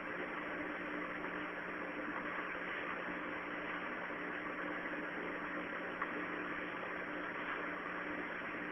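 A steady hum and hiss, like a fan or appliance running, with one faint click about six seconds in.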